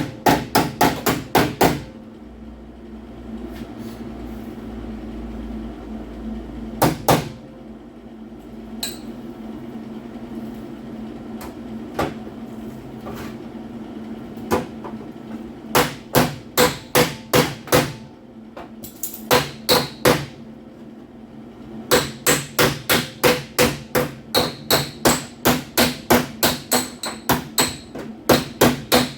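A hammer striking car-body sheet metal in runs of rapid blows, about four a second, with pauses between runs and a metallic ring on some strikes: the panel is being tapped into alignment. A steady low hum runs underneath.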